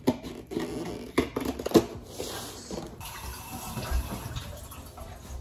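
Scissors snipping and crinkling through a gingerbread kit's packaging in a burst of sharp clicks, followed about two seconds in by a kitchen tap running into the sink.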